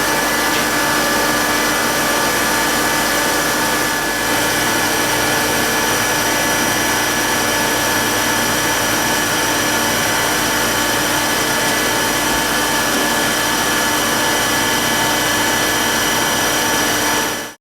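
Jones & Shipman 1400L surface grinder running: a steady machine noise with several constant whining tones over a hiss. It cuts off abruptly at the end.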